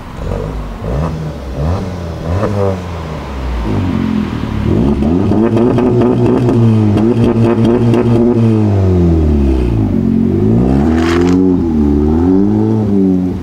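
A Skoda Octavia's 1.8 turbo four-cylinder engine, breathing through a resonator-delete exhaust, revs up hard as the car pulls away on packed snow. The revs climb and hold, drop about ten seconds in, then rise and fall again; the owner says the wheels get no grip on the snow.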